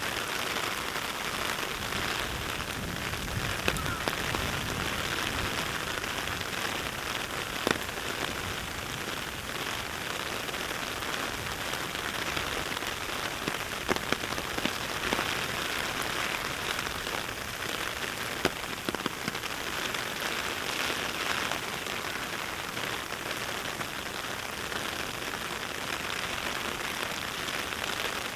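Steady, heavy rain falling, an even hiss with a few sharp drop-like taps scattered through it.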